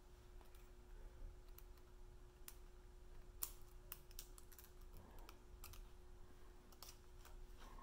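Faint, scattered light metallic clicks of piston rings being worked into their grooves on an Evinrude V4 crossflow piston by hand, with one sharper click about three and a half seconds in.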